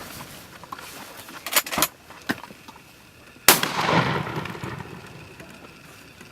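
A few sharp clicks, then one loud shotgun blast (a Mossberg 500 pump-action shotgun) about three and a half seconds in, echoing away over the next second or so.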